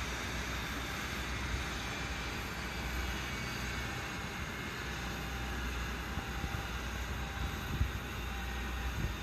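Jet airliner engines running with a steady whine of several high tones over a broad rush of noise, with a couple of faint low thumps near the end.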